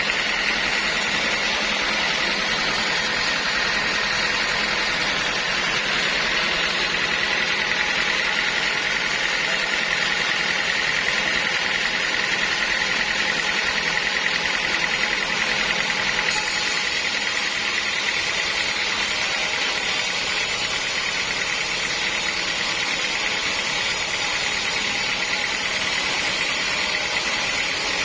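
Sawmill saw running steadily, a constant high whine over a dense, even mechanical noise.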